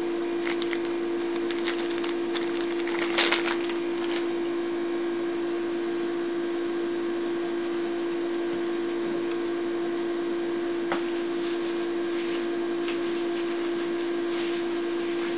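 A steady, even hum at one pitch, likely from a kitchen appliance or fan. About three seconds in there is a brief crinkling, which fits the plastic zip bag of powder being handled.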